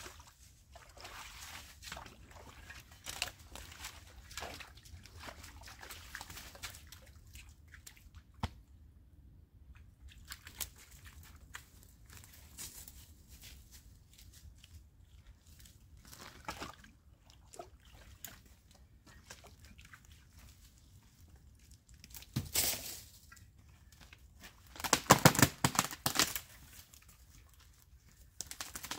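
Scattered crunching and rustling of brush and debris being handled, with a short louder crunch about three quarters of the way through and a louder burst of crunching lasting about a second near the end.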